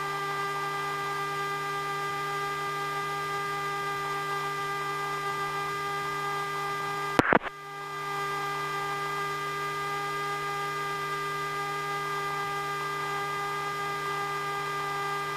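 Steady electrical hum and whine on an aircraft intercom feed. About seven seconds in there is a short loud crackle, and the hum drops out briefly before coming back.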